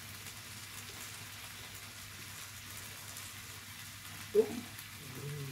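Steady hiss of food sizzling and broth simmering on a tabletop hotpot-and-grill cooker, with one brief sharp sound about four seconds in.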